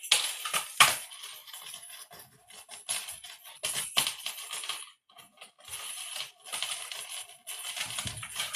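Cat toy rattling and jingling in irregular bursts as it is batted about, with sharp clicks, and a short lull about halfway through.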